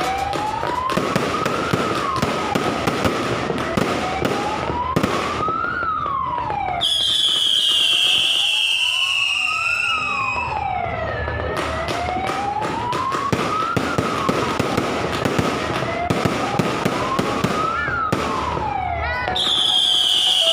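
Fireworks crackling and popping, with a siren-like wail rising and falling about every four seconds. A high whistle falls slowly in pitch twice, partway through and again near the end.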